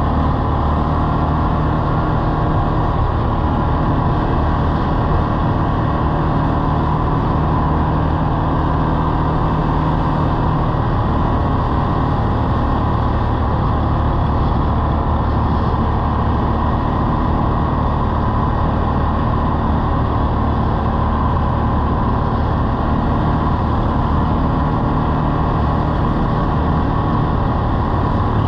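ATV engine running at a steady riding speed, mixed with rushing wind and road noise.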